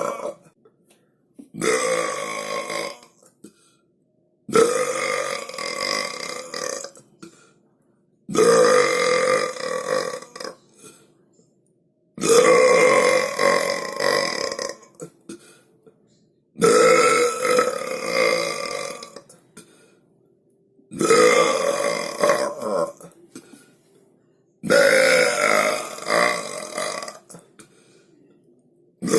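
A person burping loudly, seven long drawn-out burps of two to three seconds each with short silent pauses between them.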